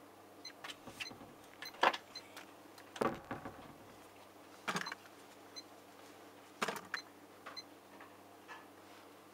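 Siemens IQ700 heat-pump dryer's control panel giving short high beeps as the programme selector is stepped through the programmes, with scattered clicks and knocks over a faint steady hum.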